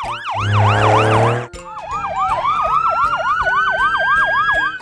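Emergency-vehicle siren sound effects: a fast rising-and-falling yelp, about four sweeps a second, with a low horn blast under it for about a second near the start. After a short break the yelp resumes, and a long, slowly rising wail joins it about halfway through.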